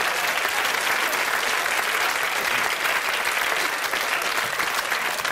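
Studio audience applauding, a dense, steady clatter of many hands clapping.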